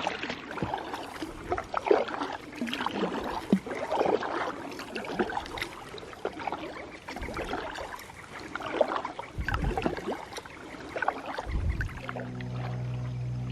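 Kayak paddle strokes dipping and splashing in lake water at an uneven pace. Background music with steady low notes comes in near the end.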